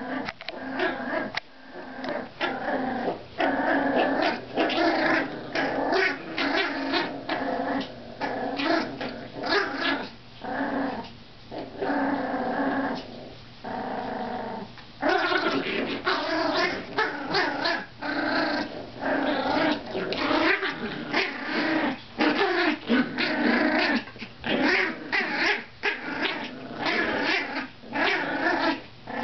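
Two Yorkshire terrier puppies play-growling continuously in a tug of war over a shirt, in short rasping bursts one after another with a few brief lulls.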